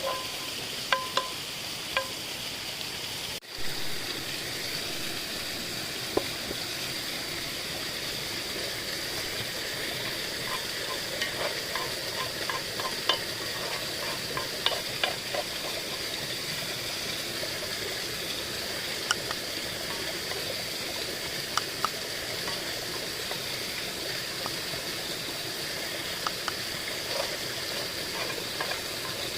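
Food sizzling steadily as it fries in a pan, with scattered light clicks and taps, as of a utensil stirring.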